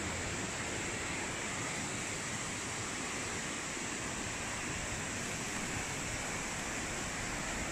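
Steady rush of a shallow rocky stream tumbling over small cascades.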